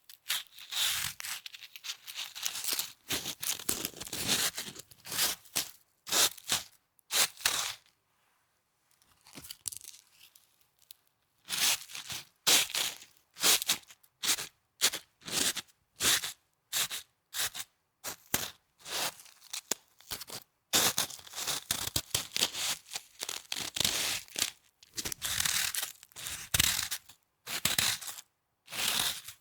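Snow being pressed and crunched in quick, crisp bursts, several a second, with a quieter pause of a few seconds about a third of the way in.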